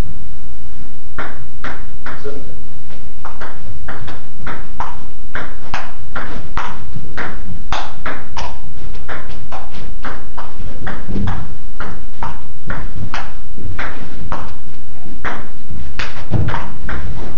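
Table tennis rally: the celluloid ball clicking off the paddles and the table in a long back-and-forth, about two hits a second.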